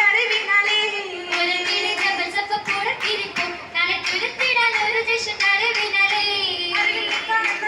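An Oppana group of young voices singing a Mappila song in unison, with sharp hand claps keeping a steady rhythm throughout.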